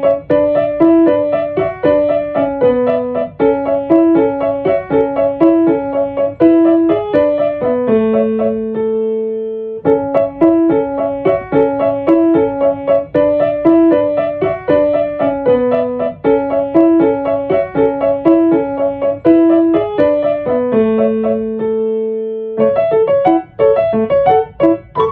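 Solo piano music: a repeating broken-chord figure that twice comes to rest on a held chord, about 8 seconds in and again around 21 seconds, then a busier passage starting near the end.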